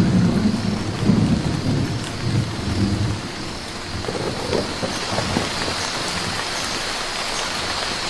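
Heavy tropical rain pouring onto rainforest foliage, a steady hiss, with a low rumble of thunder through the first three seconds or so that then dies away.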